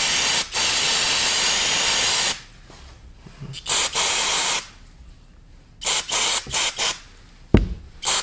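Aerosol carburetor cleaner hissing out through its straw onto a two-stroke moped carburetor in repeated bursts: one long spray of about two seconds, a shorter one around four seconds in, then several quick squirts. A single sharp knock comes near the end.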